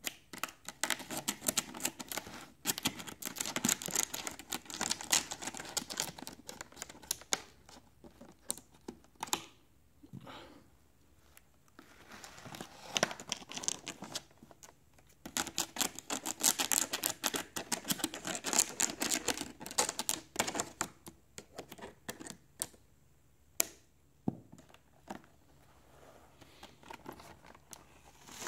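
Shrink-wrap plastic being cut and peeled off a cardboard product box, crinkling and tearing in long stretches of dense crackles, with short pauses and scattered crackles near the end.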